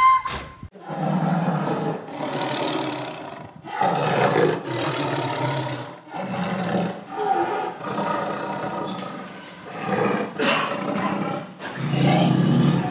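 Tiger roaring and growling in a string of long, deep calls, one after another with short breaks between them.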